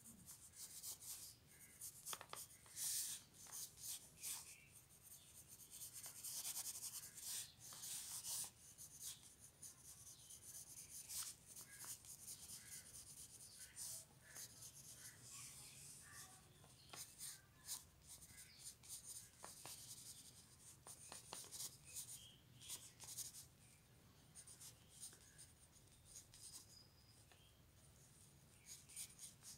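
Pencil sketching on paper: faint, quick scratchy strokes, busiest in the first several seconds and thinning out toward the end.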